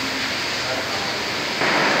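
Steady rushing noise of heavy rain, stepping up louder about a second and a half in.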